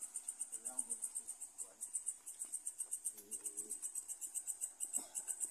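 Night insects chirping in a fast, high-pitched pulsing, about eight pulses a second, with faint voices under it.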